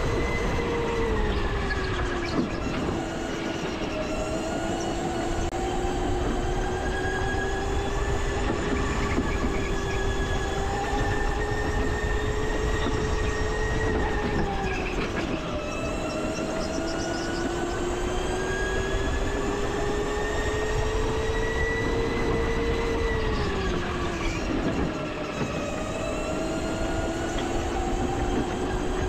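Go-kart running at race pace, its whine climbing slowly as it gathers speed and falling sharply three times as it slows for corners, over a steady rumble of wheels and wind.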